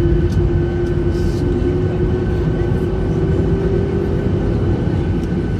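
Jet airliner engine noise: a steady low rumble under a steady whine whose pitch creeps slightly higher.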